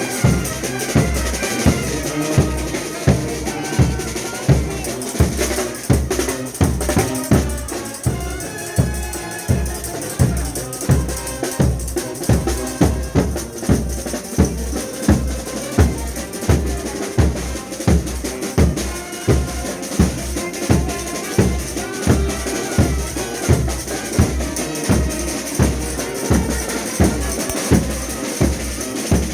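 Frevo street orchestra playing a fast frevo: brass melody over a steady, driving beat of bass drum and snare.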